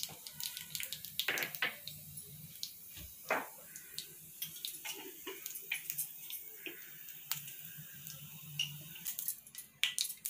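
Mustard seeds popping in hot sesame oil in a cast-iron skillet: scattered sharp pops over a faint sizzle, coming thicker near the end. The oil is hot enough for the tempering to begin.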